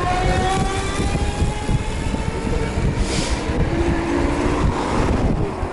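Wind rumbling on the microphone while riding a bicycle, with a passing motor vehicle whose engine tone rises slowly in pitch in the first second or so.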